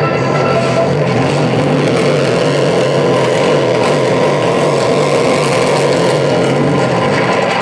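Live experimental tape and electronics noise music: a loud, dense, steady wall of noise with a wavering low hum underneath and no clear beat.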